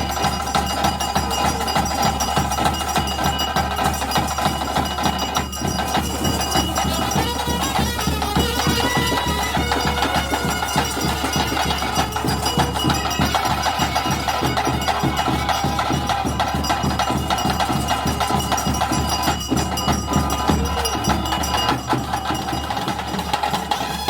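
Traditional bhoota kola ritual music: fast, dense drumming and percussion under steady held melody notes, playing without a break.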